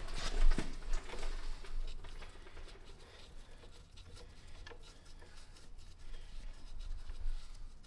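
Light, irregular clicks and taps of hand tools and metal parts being handled, with one sharp knock about half a second in.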